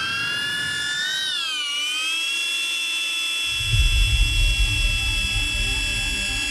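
Small camera drone's propellers running with a high whine that wavers up and dips about a second in, then holds steady; a low rumble joins about halfway through.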